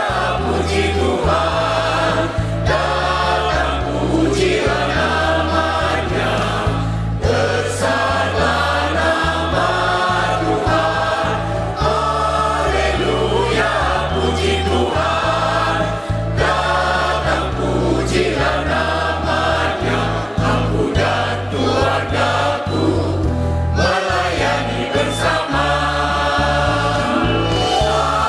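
Mixed choir of men, women and children singing the hallelujah refrain of a Christian hymn, with accompaniment and a stepping bass line.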